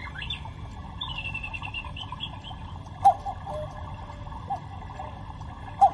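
Electronic cuckoo clock giving its recorded cuckoo call, with a short twitter of higher chirps about a second in. The call is two-note cuckoos, the second note lower, two of them starting with a sharp click.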